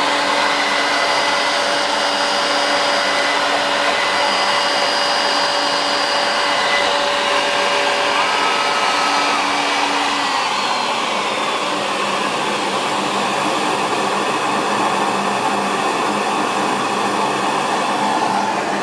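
CNC Shark HD Pro router running, its spindle router giving a steady high whir. Over it sit several whining tones that change pitch now and then, with a pitch glide about ten seconds in.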